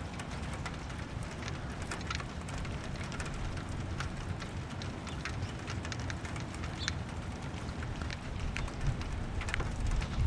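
Rain falling during a thunderstorm: a steady hiss with many individual drops ticking sharply close by, over a low steady rumble.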